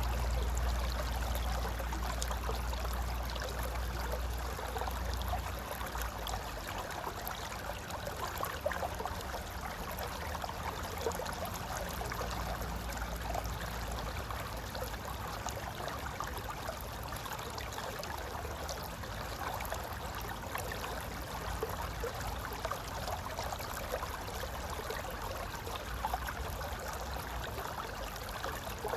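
Mountain river flowing over rocks: a steady rushing and gurgling with many small splashes throughout. A low rumble underneath is strongest for the first five seconds or so, then eases.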